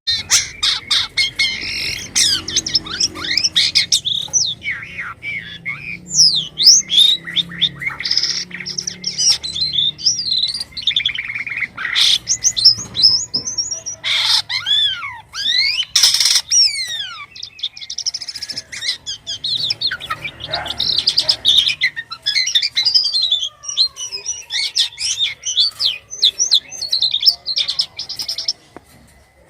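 A jalak kapas starling singing a long, varied song: rapid chattering phrases mixed with clear whistles, including several loud falling whistles about halfway through, broken by short pauses.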